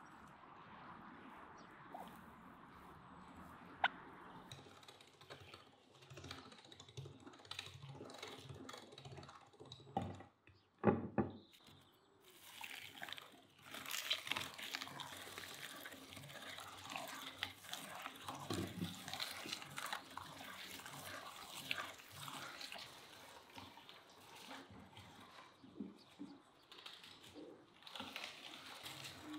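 Metal hand-cranked meat grinder mincing raw meat from about twelve seconds in: a dense, wet squelching and crackling as the crank turns. Just before it come a few loud low thumps.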